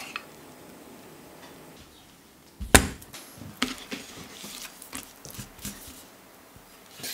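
A kitchen knife knocks sharply on a wooden cutting board about three seconds in. Lighter taps and scrapes follow as a raw chicken thigh is handled and trimmed on the board.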